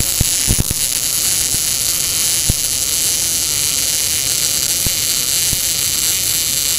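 Tenya Smart MIG 265 welder's arc running a continuous bead on flat steel bar: a steady, loud hiss with a few sharp pops.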